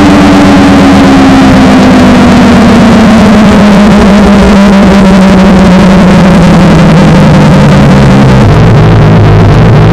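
Washing machine spin motor winding down, heavily distorted. A loud whine falls steadily in pitch over a pulsing buzz, then drops abruptly to a lower buzz near the end.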